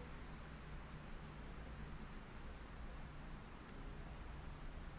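Faint insect chirping: short, high chirps repeating evenly about three times a second over a low, steady outdoor background hiss.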